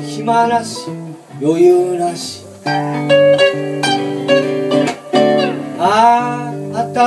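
Blues played live on two hollow-body electric guitars: a lead line of picked notes, several bent up and back down in pitch, over a strummed chord accompaniment.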